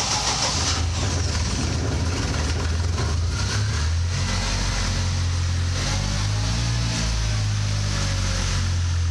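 Żuk van's swapped-in ZMZ-405 injected four-cylinder engine running just after starting. Its speed wavers up and down for a few seconds about halfway through.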